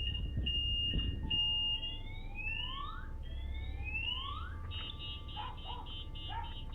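Electronic anti-theft alarm sounding after being set off, cycling through its tones: a couple of steady high beeps, then rising whoops from about two seconds in, then a fast pulsing chirp near the end.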